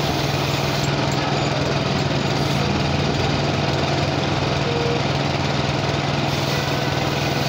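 A small engine running steadily with an even hum that does not change in pitch or loudness.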